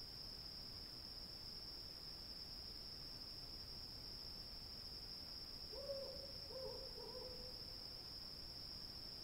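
Steady high chirring of crickets, with an owl hooting two or three times about six seconds in.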